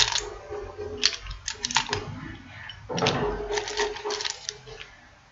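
Small screwdrivers being handled, clicking and rattling against each other in several short clusters.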